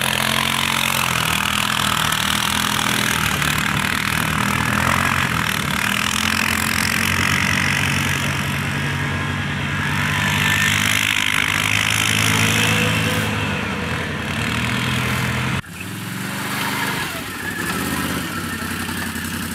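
ATV engines revving up and down as quad bikes spin and slide on snow, with a steady hiss under the engine note. About three-quarters through, the sound breaks off abruptly and a quieter ATV engine carries on.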